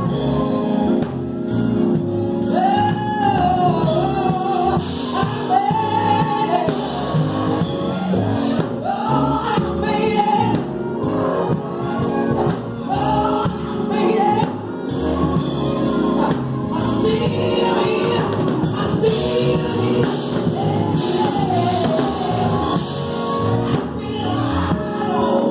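Gospel mass choir singing live with electric keyboard accompaniment. One voice rises and falls over the ensemble in repeated arching phrases.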